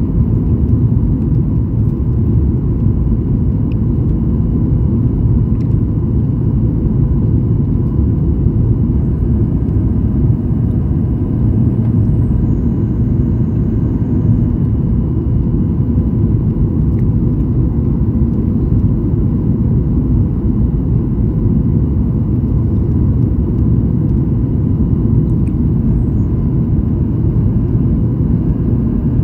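Steady low rumble of an airliner's jet engines and airflow heard inside the passenger cabin in flight. A faint high whine comes in about nine seconds in and steps down in pitch a few seconds later before fading.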